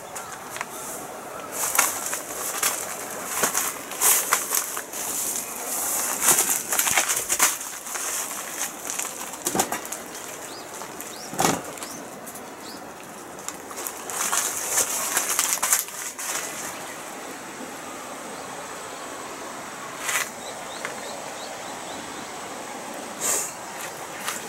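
Blue polyethylene tarp rustling and crinkling in bursts, with sharp crackles. It goes quieter about two-thirds of the way through, leaving a couple of short rustles near the end.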